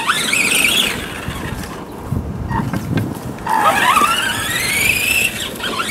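RC truck's motor whining, rising in pitch as the truck accelerates: a short rising run in the first second and a longer one from about three and a half to five seconds in.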